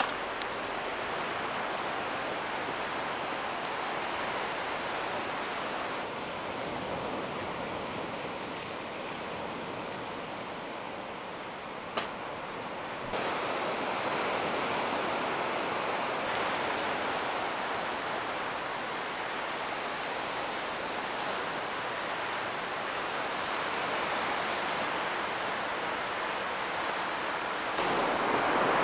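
Sea surf washing on the shore, a steady rushing noise with some wind, with one sharp click about twelve seconds in and growing louder near the end.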